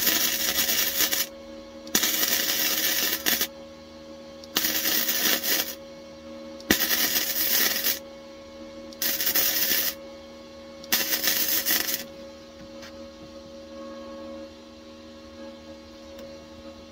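MIG welder laying short stitch welds on the steel floor tunnel of a car: six crackling, sizzling bursts of about a second each, roughly two seconds apart, stopping about twelve seconds in. A steady hum runs underneath.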